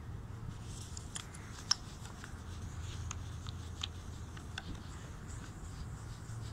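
Paper towel rubbing and crinkling against a plastic headlight lens as it is polished by hand, with scattered sharp ticks, the loudest about one and a half seconds in, over a steady low background hum.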